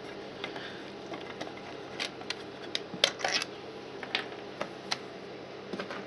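Small screwdriver unscrewing a cover screw from a fire alarm isolator switch box: a string of irregular small clicks and scrapes, some in quick clusters.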